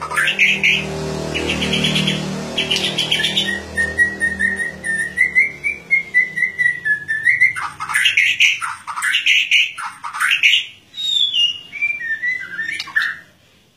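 White-rumped shama (murai batu) in full open song (ngeplong): fast chattering trills, then a long clear whistle held for a few seconds and rising slightly, then sharp rapid notes and a falling whistled phrase that stops just before the end. A low hum runs under the song for the first few seconds.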